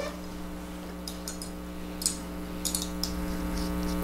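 Steady electrical mains hum from the sound system, with a few light clicks and ticks as small hand-held objects are handled.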